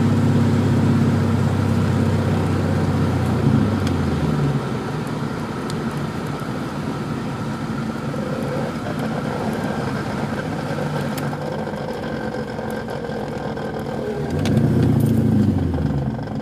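A 1996 Mustang Cobra's 4.6-litre V8 driving, heard inside the cabin: a steady engine drone that drops away about four seconds in, leaving steady road noise. The engine note comes back and shifts in pitch for a second or two near the end.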